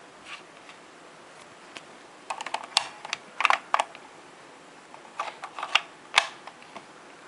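Hard plastic clicks and rattles from a toy Kamen Rider Blade transformation belt buckle as a rouse card is slid into its card tray. The clicks come in short clusters about two, three and a half, five and six seconds in.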